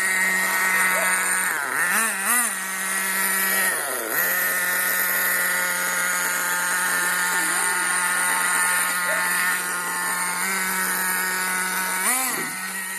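Small motor of a radio-controlled toy running with a steady hum, its pitch briefly wobbling and dipping a few times, around two and four seconds in and again near the end, as it is loaded.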